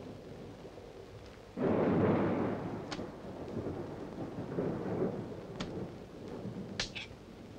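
Thunder rolling with rain: a sudden loud rumble about a second and a half in that slowly fades, then a weaker swell around five seconds. A few sharp clicks and clinks sound over it.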